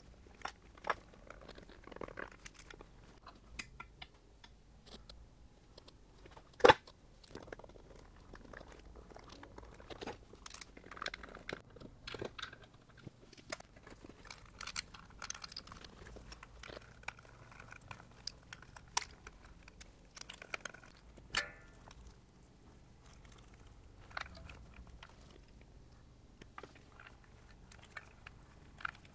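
Small clicks, taps and crackles of hands working electrical wires with a screwdriver at VFD and motor terminals, with one sharp, much louder click about seven seconds in.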